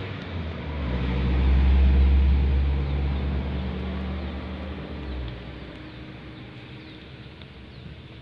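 Low motor-vehicle rumble that swells over the first two seconds and fades away by about five seconds in, over a steady background hiss.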